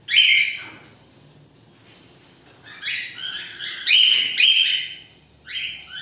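Cockatiels calling: a loud call right at the start, a run of several calls around the middle, and one more near the end.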